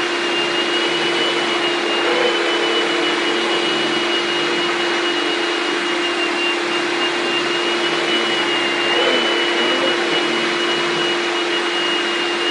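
Shop-Vac canister vacuum running with a Kenmore power head over a rug: a steady rush of air with a constant hum and a thin high whine that wavers slightly now and then.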